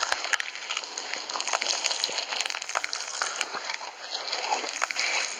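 Slime being squeezed and poked by hand, giving a run of small crackling clicks and pops.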